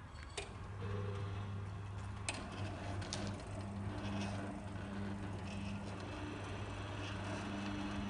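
Electric swing-gate operator motor running with a steady low hum as the wrought-iron entrance gate swings open, starting about a second in after a light click, with a couple more faint clicks.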